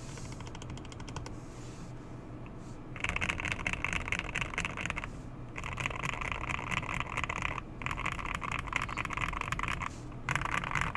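Mechanical keyboard with Tangerine linear switches being typed on fast. After a quieter start, it comes in four bursts of rapid keystrokes of about two seconds each, with short pauses between.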